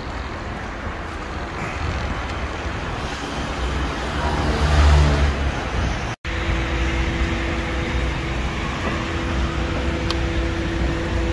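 Steady road-traffic rumble that swells as a vehicle passes about four to five seconds in. The sound cuts out for a split second just after six seconds, then the rumble goes on with a steady low hum.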